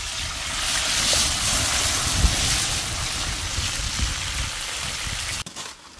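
Cut okra sizzling on a hot tawa over a wood fire: a loud, steady hiss with a low rumble underneath and a couple of soft thumps. It cuts off suddenly near the end.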